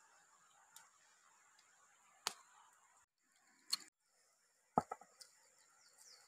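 A few sharp knocks and clicks about a second apart, the loudest nearly five seconds in and followed by two or three lighter ones, over a faint steady hiss. The sound cuts out briefly about three seconds in.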